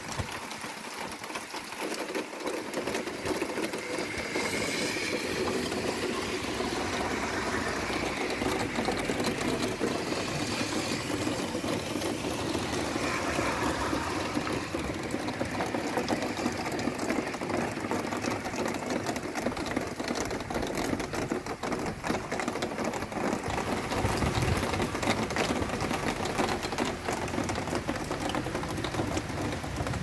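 Steady rain falling during a windy storm, a dense even hiss with gusts of wind rumbling on the microphone now and then, most strongly in the last few seconds.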